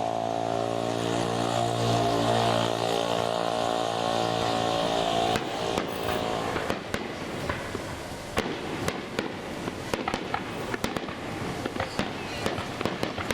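A steady low droning hum stops abruptly about five seconds in. Fireworks then crackle and pop rapidly and irregularly, dozens of sharp small bursts to the end.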